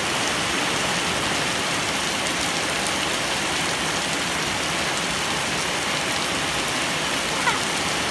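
Heavy rain pouring steadily onto gravel and puddled concrete, an even hiss. A short high-pitched squeak stands out near the end.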